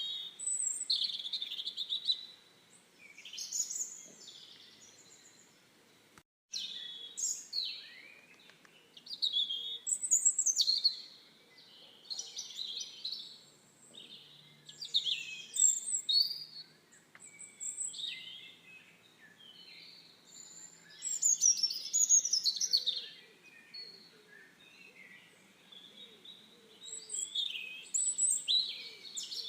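Songbirds chirping and singing, short overlapping phrases one after another, with a brief break in the sound about six seconds in.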